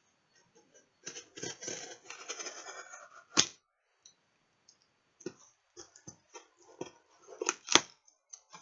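Cutting open the packing on a cardboard parcel box: a scratchy stretch of slicing, a sharp snap, then scattered clicks and knocks as the box is worked open, the two loudest near the end.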